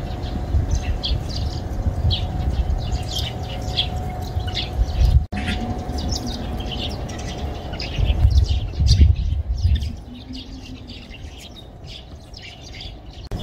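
Small birds chirping over and over, short high notes throughout, over a low rumble of wind on the microphone that eases off after about ten seconds. The sound drops out for an instant about five seconds in.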